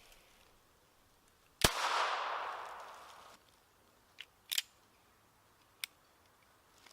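A single shot from a Chiappa .22LR single-action revolver: one sharp crack whose echo fades over about a second and a half. A few light clicks follow, one of them doubled.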